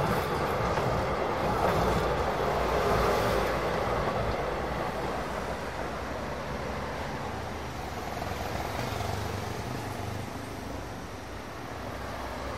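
Heavy city-centre road traffic with trams: a steady rumble of engines and tyres, with a vehicle passing close and loud over the first few seconds before the noise fades back to a lower, even rumble.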